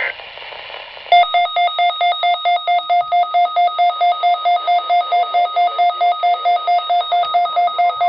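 Weather alert radio's electronic alarm beeping fast and evenly, about five beeps a second, starting about a second in after a short high data burst at the very start.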